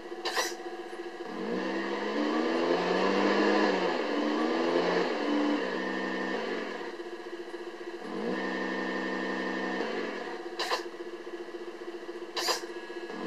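Simulated engine sound from a Tamiya MFC-02 sound-and-light unit, played through its small speaker: it revs up and down with rising and falling pitch in the first few seconds, then runs at a steady pitch. Sharp clicks sound about half a second in and twice near the end.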